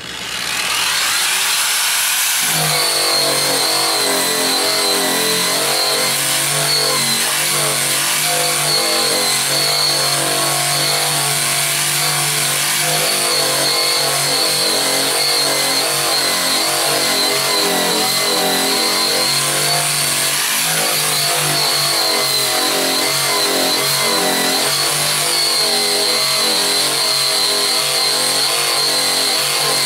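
Eastwood Contour SCT surface conditioning tool with an abrasive disc spinning up over about two seconds, then running steadily with a high whine as it is worked against the painted sheet metal of a car's trunk lid, stripping the paint.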